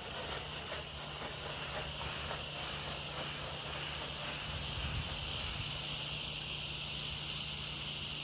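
Water spray hissing steadily from a washing wand's nozzle, with the low steady hum of the pump running underneath.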